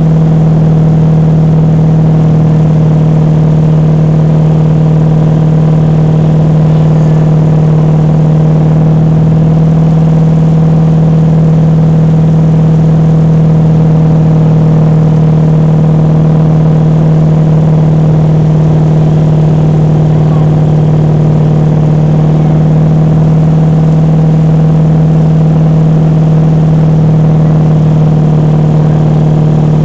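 Motorboat engine running steadily at speed while towing, loud, with a strong steady low hum that does not change in pitch.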